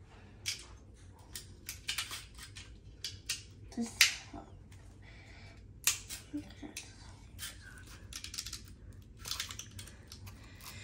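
Snap Circuits parts being snapped onto each other and onto the clear plastic base grid: irregular clicks and clacks of the snap connectors and plastic pieces, the sharpest about four and six seconds in.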